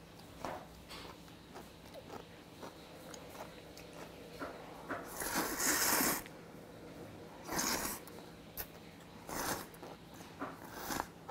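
A man slurping hot jjamppong noodles from a bowl: one long slurp about halfway through, then three shorter ones, with small clicks in between.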